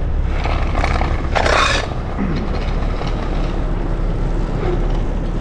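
Heavy rotator tow truck's diesel engine running steadily while the boom holds a loaded shipping container. A brief hiss comes about a second and a half in.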